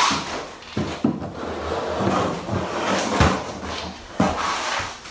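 A sheet of Mapeguard UM uncoupling membrane rustling and sliding as it is laid down and pressed into the mortar by hand, with several thumps.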